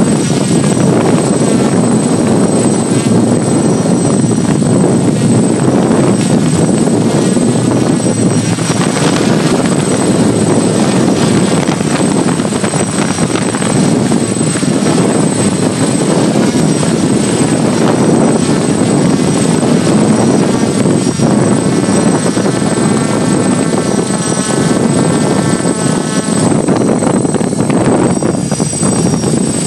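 Hexacopter's six electric motors and propellers buzzing steadily, heard close up from the phone carried on board, with a thin high whine running over the top. About two-thirds of the way in, the motor pitch wavers for a few seconds.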